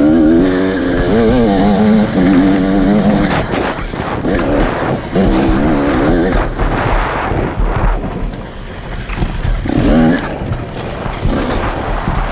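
Enduro dirt bike engine running under constantly changing throttle, its pitch rising and falling rapidly as the rider works through rough ground, over a steady rushing noise. The engine is loudest near the start, eases off around two-thirds of the way in, and picks up again briefly.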